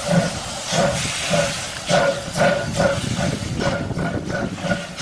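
Steam locomotive chuffing under a steady hiss of steam, the exhaust beats coming quicker toward the end as it gathers speed.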